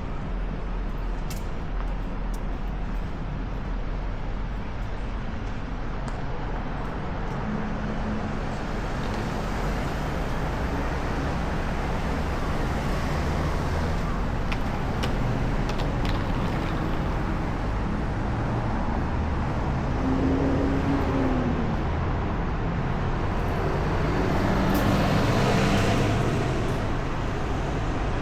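Urban road traffic: a steady hum of passing cars, with one vehicle passing closer and louder about three-quarters of the way through.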